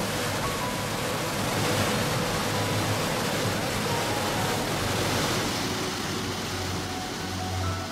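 Large waterfall with a 50-metre free fall, heard close up: a steady, loud rush of falling water and spray.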